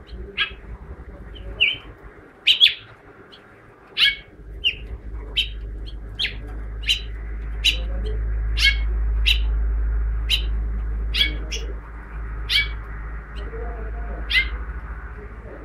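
Caged male house finch giving short, sharp chirps, one every half second to a second at irregular spacing, about twenty in all. A low rumble rises underneath from about a quarter of the way in and fades out near the end.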